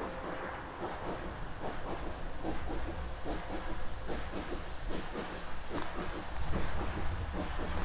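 Steam-hauled heritage train running, heard from inside the carriage: a steady low rumble with rapid, irregular clicking and clatter from the wheels on the track. Steam hiss comes from the Andrew Barclay tank locomotive.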